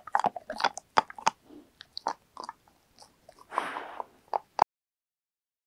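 Labrador retriever crunching and chewing a dried shark-cartilage treat close to the microphone, a quick run of sharp crunches. The sound cuts off suddenly near the end.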